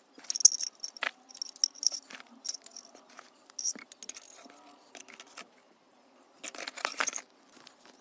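Hard plastic parts of a mini cordless vacuum cleaner being handled: irregular clicks, knocks and scrapes in quick clusters, pausing for about a second and coming back in a louder flurry near the end.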